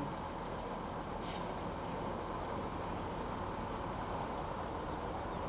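Steady low rumble of vehicle engine noise, with a single short hiss a little over a second in.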